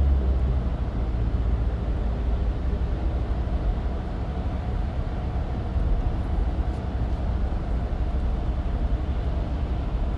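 Steady road and engine rumble of a moving car, heard from inside the cabin, deep and even with no change in pace.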